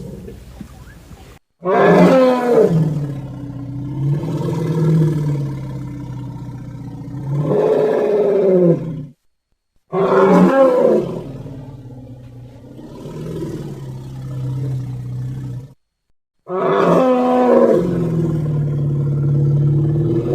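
Woolly mammoth sound effect: three long, low animal calls, each opening with a falling cry and settling into a drawn-out deep rumble, each cut off abruptly by a moment of dead silence, the third starting a few seconds before the end.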